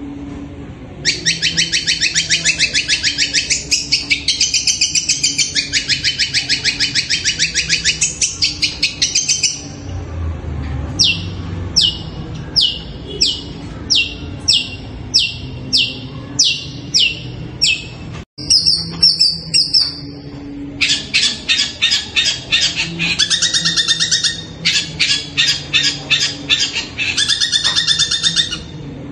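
Caged long-tailed shrike (cendet) calling loudly: long runs of rapid, harsh chattering, then a string of about a dozen separate sharply falling high notes at roughly two a second, then more rapid chattering near the end.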